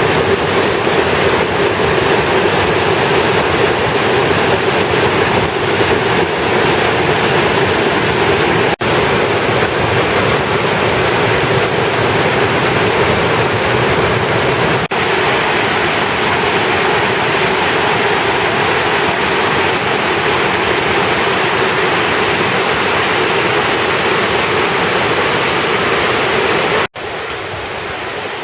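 Waterfall pouring: a loud, steady rush of falling water. Near the end it cuts off suddenly to a quieter, steadier water sound.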